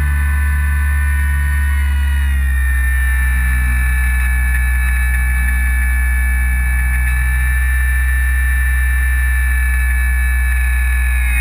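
Onboard sound of the Parkzone Radian Pro's electric motor and propeller running at steady throttle in flight: a steady whine over a constant low hum, its pitch shifting slightly about two seconds in and starting to slide near the end.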